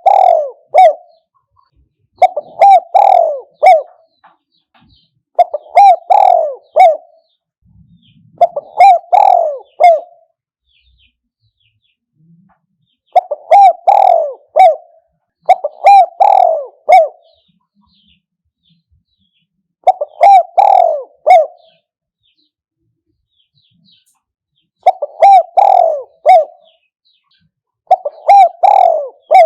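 Spotted dove cooing its repeated multi-note phrase, each about a second and a half long, coming every two to three seconds with a couple of longer pauses. It is a decoy dove's call, used to lure wild spotted doves.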